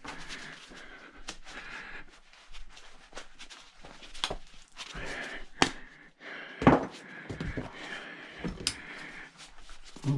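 Scattered clicks and knocks of metal parts being handled and worked by hand during a teardown, with two louder knocks about five and a half and six and a half seconds in.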